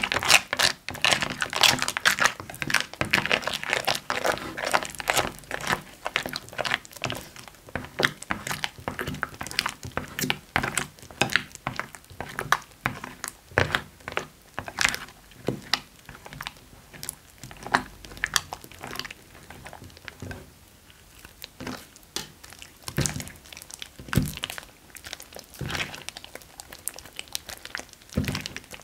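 Foamy slime being stirred with fingers and then kneaded and pulled by hand in a glass bowl: wet squishing with crackling and popping. The crackles come thick and fast for the first few seconds, then thin out to separate squishes and pops.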